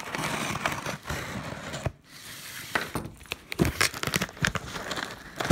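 A shipping package being torn open by hand: a steady tearing for about two seconds, then scattered crinkling and crackling as the wrapping is pulled at.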